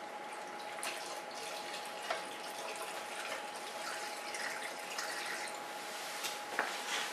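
Engine coolant glugging as it is poured from a plastic jug into the car's coolant expansion tank, topping the system up to between the min and max marks while it is bled. A few light plastic clicks and knocks come through, the sharpest near the end.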